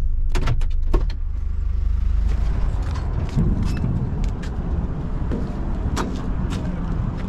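Vehicle engines running on a steel pontoon river ferry as a truck drives onto the deck: a steady low rumble with scattered clanks and knocks.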